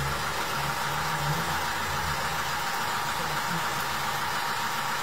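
Car engine idling, a steady hum whose lowest part fades about halfway through.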